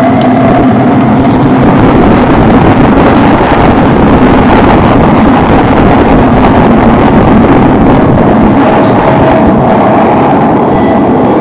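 Singapore MRT train running at speed through an underground tunnel, heard from inside the carriage as a loud, steady rumble and rush of wheels on rail and air. A motor whine fades out as the sound begins, and a fainter one comes back near the end.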